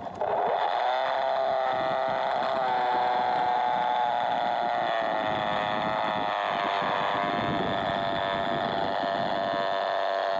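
200 W, 900 kV brushless electric motor and propeller of a small RC plane, heard from its onboard camera, whining steadily under power. It comes in suddenly at the start, and its pitch steps up slightly about two and a half seconds in.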